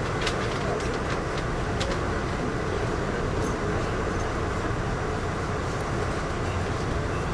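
Steady running noise of a passenger railcar in motion, heard from inside the car: a low rumble of wheels on rail, with a few sharp clicks in the first two seconds.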